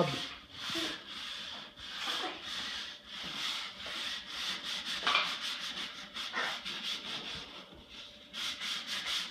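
Scrubbing a ceramic tile floor by hand, the scrubber rubbed back and forth in rasping strokes about twice a second, quicker near the end.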